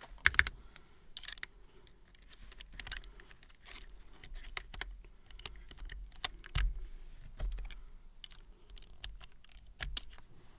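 Keys being pressed on a freshly built mechanical keyboard, in irregular bursts of clacks, with the loudest few clustered just after the start.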